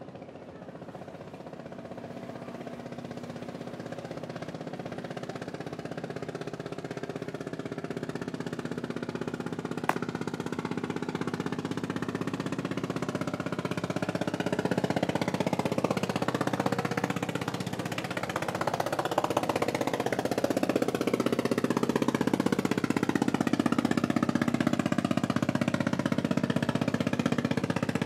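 A vehicle engine droning steadily and growing gradually louder as it approaches, with a sweeping shift in tone around the middle as it passes. A single sharp click about ten seconds in.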